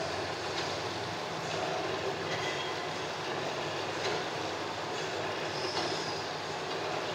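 Silk reeling machines running: a steady mechanical clatter and hum that goes on without a break.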